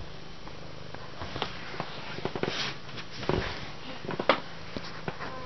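Domestic cat purring steadily while her kittens nurse, with scattered short clicks and rustles over the purr.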